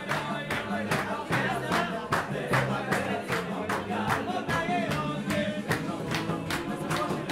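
A group of men singing a lively song together with rhythmic hand-clapping, over music with a steady fast beat.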